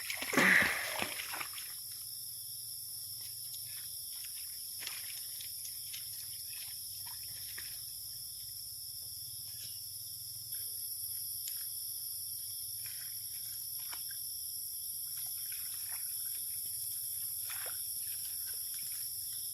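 Steady high-pitched chorus of calling animals around a rain-filled pond, with scattered short chirps and clicks and one louder, downward-sweeping call about half a second in.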